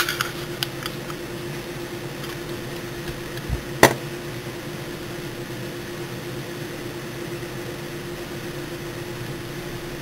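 Steady mechanical hum with a constant low tone, like a room fan. Two sharp clicks stand out, one at the very start and one about four seconds in, as the brass belt buckle is handled and turned over.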